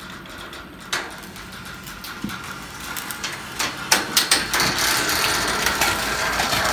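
Metal boat-slip awning frame being pulled over and collapsing: creaking, scraping and clanking of its bending members, with sharp knocks that come thicker and louder from about halfway through.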